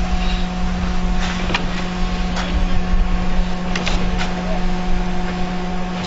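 Truck-mounted concrete mixer pump running: a steady engine drone with a constant hum, broken by a few sharp knocks.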